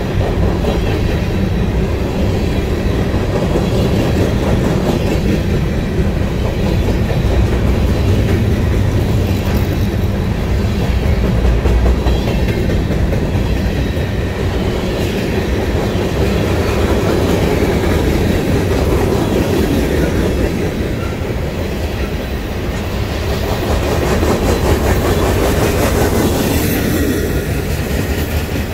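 Mixed freight cars of a Canadian Pacific train (covered hoppers, tank cars, a gondola) rolling past: a steady rumble and clatter of steel wheels on rail.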